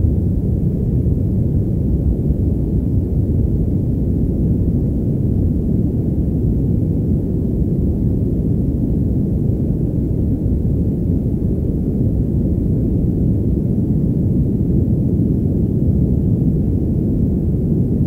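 Steady "padded" white noise: artificial noise muffled so that the hiss is cut away and only a deep, even rush remains, unchanging throughout.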